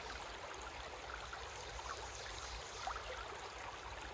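A shallow river running over rocks: a steady, quiet burble of flowing water.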